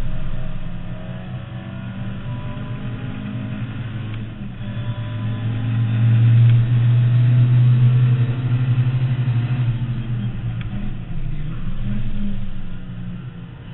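Mk2 Ford Escort's 2.0 Pinto engine on 45 carburettors, heard from inside the cabin under racing load. Its note builds about halfway through and is loudest as it pulls hard for a few seconds. It eases, swells again briefly, then drops back near the end.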